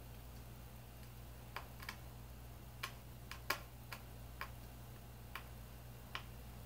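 Light, irregular clicks and ticks of small laptop screws and a small Phillips screwdriver being handled and driven into the laptop's screen frame: about a dozen, the sharpest about three and a half seconds in. A steady low hum runs underneath.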